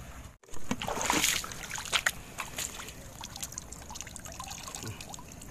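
Shallow pond water splashing and trickling around a plastic bucket being handled in it, with scattered small splashes and knocks that are loudest about a second in.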